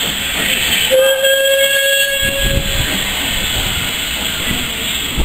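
Steam locomotive hissing as it passes in a cloud of its own steam, with one steady whistle blast about a second in, lasting about two seconds.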